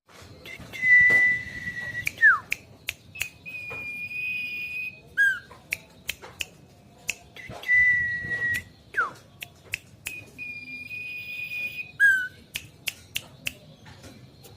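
Caged songbird singing a raspy, hoarse song that the owner says is not yet fully recovered after illness. The phrase repeats twice: a long steady whistle, a quick falling note, a second long slightly higher whistle, then a few short falling notes. Sharp clicks come between the notes.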